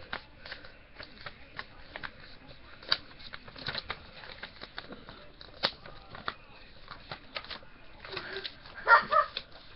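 A sheet of paper being folded and creased by hand: irregular crinkles, rustles and small taps, with a louder burst of handling a little before the end.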